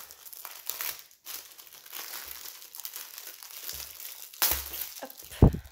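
Clear plastic wrapping crinkling and rustling as a rolled diamond painting canvas is handled and its wrapper pulled at, with a louder rustle about four and a half seconds in and a sharp knock near the end.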